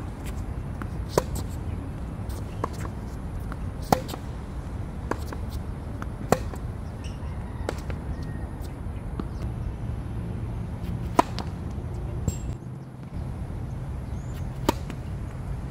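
Tennis balls struck by racquets during a rally: sharp pops about a second and a half apart, loud and faint in turn as the near and far players hit. After a pause, a serve is struck near the end, over a steady low background rumble.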